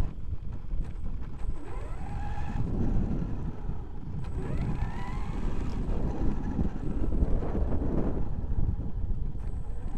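Traxxas X-Maxx electric RC monster truck heard from onboard as it drives over gravel. Its brushless motor whines up and down in pitch with the throttle, over a constant rumble of tyres on stones and wind on the microphone.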